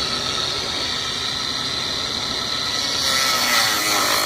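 Angle grinder running with a steady high whine while grinding into a bike lock; the grinding grows harsher about three seconds in.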